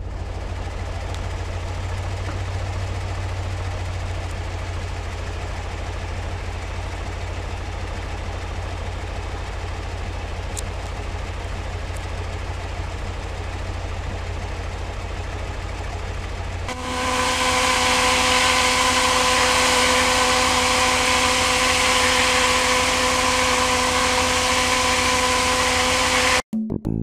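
Water blasting from a dam's outlet: a loud, steady rush with a steady hum running through it, which starts about two-thirds of the way in. Before it there is a lower, steady rumble.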